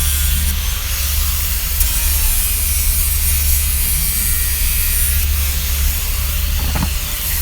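Angle grinder with an abrasive disc running steadily as it grinds into a wooden stool, an even buzzing hiss over a low hum.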